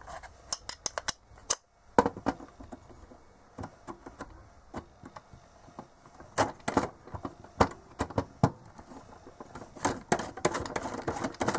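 A small metal tool clicking and scraping against a nut on the back of a multimeter case as the nut is worked loose, in scattered short clicks and taps.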